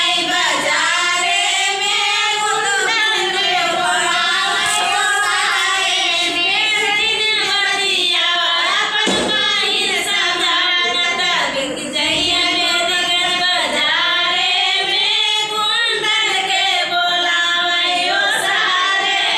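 Women singing together without instruments, in a slow, drawn-out folk melody with long held notes.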